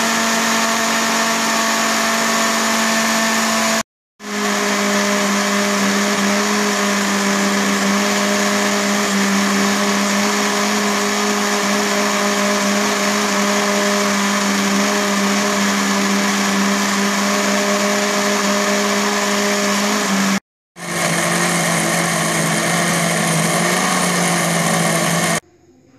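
Small electric spice blender's motor running steadily at a constant pitch, grinding chopped spice ingredients into a paste. It breaks off briefly twice, runs a little lower after the first break, and stops near the end.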